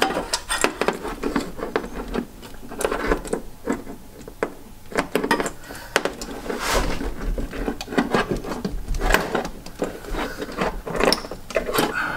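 Irregular clicks, knocks and rubbing from a socket on extensions and hands working among the hoses and wiring at the back of an engine, feeling for the coolant temperature sensor to fit the socket onto it.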